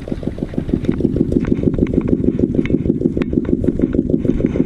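A small engine running steadily with a fast, even low chugging, with scattered light clicks over it.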